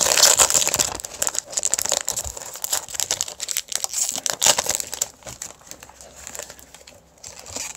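Foil Pokémon booster pack wrapper crinkling as it is handled and torn open. The crackling is densest in the first few seconds and thins out after.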